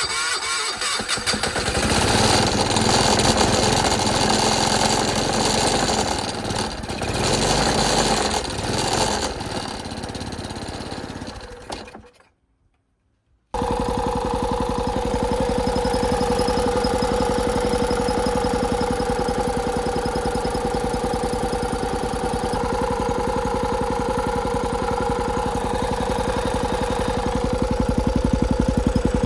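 Kobelco SS1 excavator engine: an uneven, loud mechanical run for the first twelve seconds or so, then after a brief break it runs at a steady speed with an even beat and a steady whining tone.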